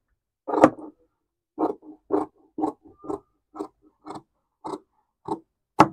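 Large tailor's shears snipping through trouser cloth along a chalk line, about ten short crunching cuts at roughly two a second.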